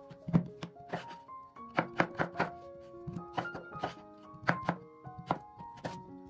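Background instrumental music with a knife chopping on a cutting board over it, the chops coming at an uneven pace of two or three a second.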